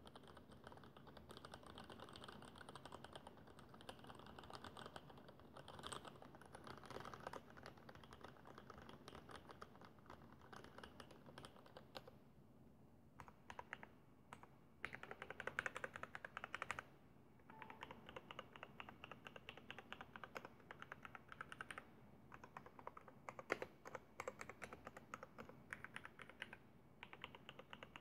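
Fast, continuous typing on a custom mechanical keyboard with an acrylic case and vintage Cherry MX Black linear switches on 55 g springs. The keystrokes are faint and rapid, thin out briefly a little before halfway, then pick up again.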